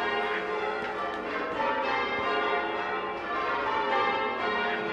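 Church tower bells being change-rung by hand ropes: a peal of several bells struck one after another in a set order, each ringing on over the next.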